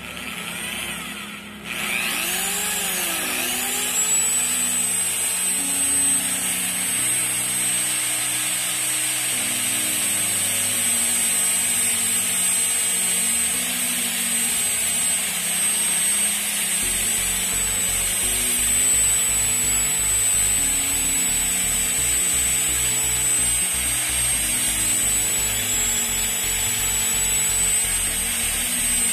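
Power tool motor starting about two seconds in, spinning up with a rising whine, then running steadily. It turns a rewound angle-grinder armature held in its chuck, with a thin strip rubbing against the spinning winding.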